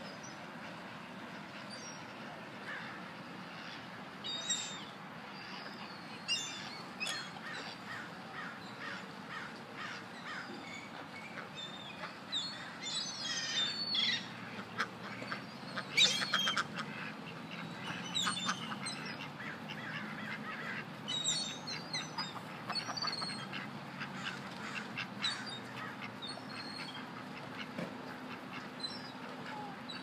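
A flock of ducks and other waterbirds calling: short quacks and calls scattered irregularly, growing busier and louder through the middle, over a steady outdoor background.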